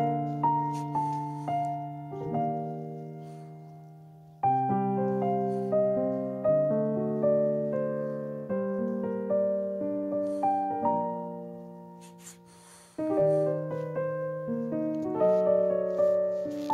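Background piano music: a slow, gentle melody of single notes and chords that each fade away, with brief breaks between phrases about four seconds in and again near thirteen seconds.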